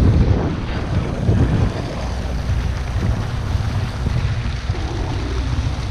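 Wind buffeting the microphone over ocean water sloshing against a boat's hull, with the low steady hum of the boat's engine coming in about two seconds in.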